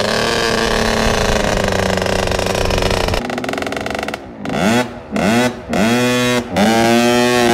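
Cobra 50cc two-stroke kids' motocross bike engine running at high revs while being ridden. About three seconds in it gives way to three quick throttle blips, the revs dropping between each, then the engine holds high revs near the end.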